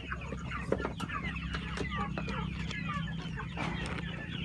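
A flock of chickens clucking, many short calls overlapping throughout, with a steady low hum underneath.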